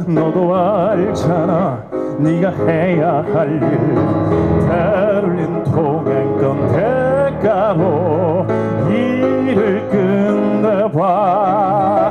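A man singing a musical-theatre song live into a microphone over instrumental accompaniment, his voice wavering with vibrato on the sustained notes; he holds one long note near the end.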